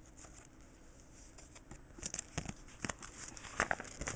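Clear plastic card sleeves and a binder page crinkling and rustling as trading cards are handled, in short irregular crackles starting about two seconds in.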